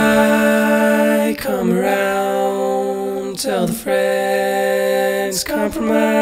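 Slow vocal music: a singer holds a string of long notes, each about two seconds, with short breaks between them.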